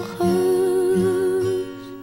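Song: a woman's voice holds one long note with vibrato, then drops out near the end while plucked acoustic strings keep strumming chords.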